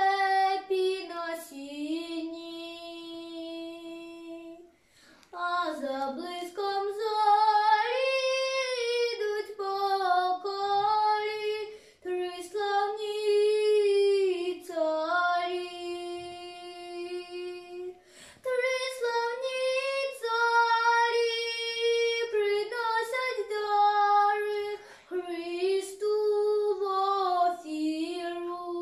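A young girl singing a Ukrainian folk song solo and unaccompanied, in long held phrases with short breaks between them.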